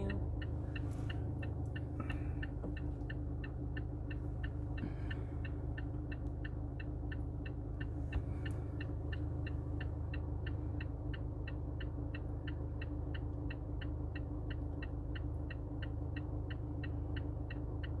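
Car's indicator relay ticking steadily, about three ticks a second, over the low steady hum of the idling engine: the car's flashers are on while it stands.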